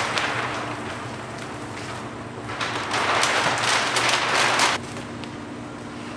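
Large sheet of clear paint protection film rustling and crinkling as it is lifted and laid over a car's hood, loudest in a long crackly stretch midway through.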